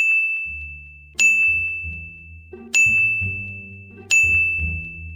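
Music: a bright, bell-like ding struck four times, roughly every one and a half seconds, each note ringing on, over a low bass line.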